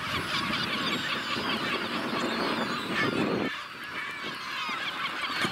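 Colony of kelp gulls calling, a dense chorus of many short overlapping calls with no let-up.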